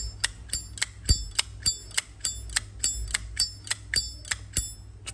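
Silver-plated 1995 Zippo lighter clicking crisply over and over, about three to four metallic clicks a second, each with a short bright ring.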